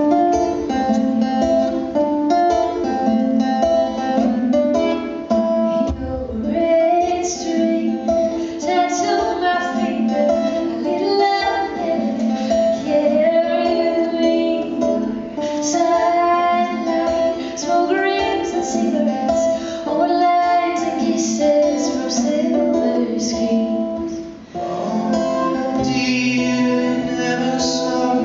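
Live acoustic duo music: a steel-string acoustic guitar strummed, joined about six seconds in by a woman's singing voice.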